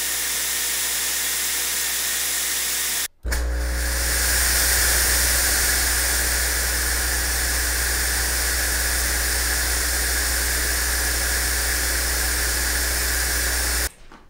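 Chauvet fog machine pumping out fog: a steady hiss over a low hum. It cuts out briefly about three seconds in, resumes a little louder, and stops just before the end.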